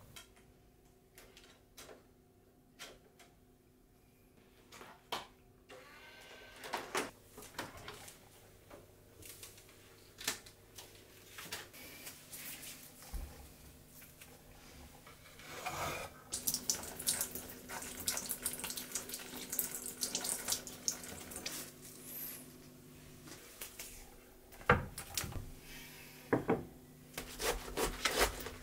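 Kitchen tap water running as a head of cabbage is rinsed, amid scattered light clicks and knocks. Near the end come crisp snapping and tearing sounds as the cabbage's outer leaves are pulled off.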